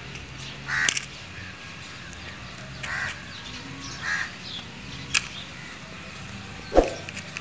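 Crows cawing about three times, with a light click and then one short, sharp knock near the end.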